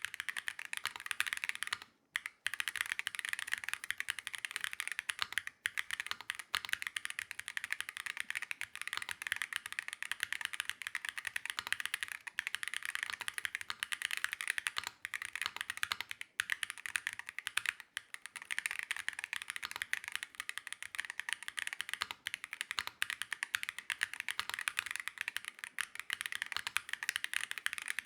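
Typing on a mechanical keyboard fitted with Wuque Studio Diamond 'Heart of Ocean' magnetic Hall-effect switches: a fast, continuous run of key clicks with a few brief pauses, the first about two seconds in.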